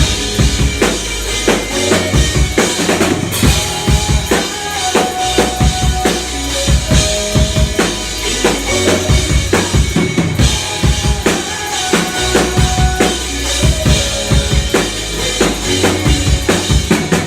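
A band playing live, loud: a driving drum kit with steady bass drum and snare hits over sustained bass and other instruments.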